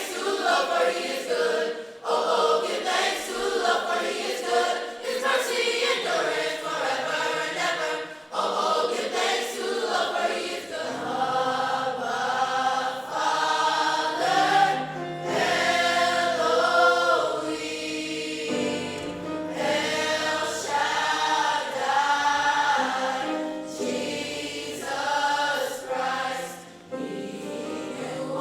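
A choir singing, with several abrupt changes from one sung passage to another.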